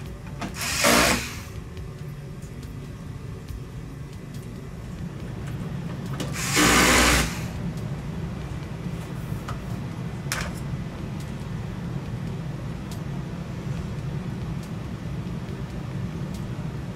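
Small electric screwdriver whirring in short bursts: once about a second in, once for about a second at around six and a half seconds, and briefly near ten seconds. It is driving the screws that hold new LED backlight strips to the TV's metal back panel. A steady low hum runs underneath.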